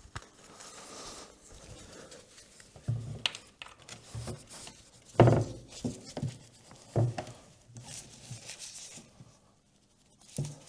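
Hand tools being handled while working under a motorcycle: a handful of separate metallic knocks and clunks, the loudest about five seconds in, with a soft breathy hiss near the end.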